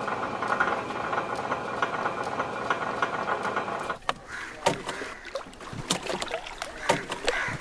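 A steady background haze for about four seconds. Then wet fish are handled in a crate, with irregular sharp slaps and splashes as they are grabbed, flop and are tossed onto the pile.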